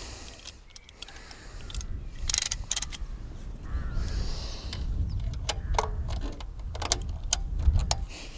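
Scattered metal clicks and knocks of a long belt tensioner tool being fitted to and levered on an engine's accessory belt tensioner pulley, over a low rumble.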